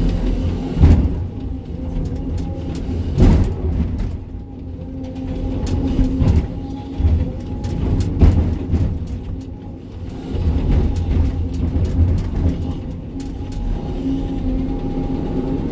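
Sany 305 excavator's diesel engine running, rising and falling with the hydraulic load. Several sharp knocks, about four in all, come through: rock striking the steel bucket during loading and stone sorting.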